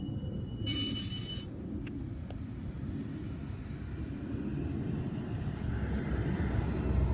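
BMW 335i's turbocharged straight-six running with a steady low rumble, which swells slightly near the end. A brief hiss comes about a second in.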